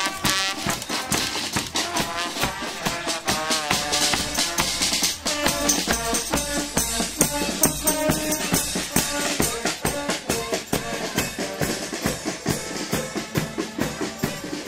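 Carnival brass band playing live: trombones and other brass carrying the tune over drums and percussion beating a steady march rhythm.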